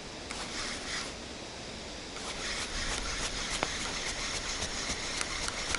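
Spinning reel being wound: a steady whir with many small ticks, starting about two seconds in, over wind noise.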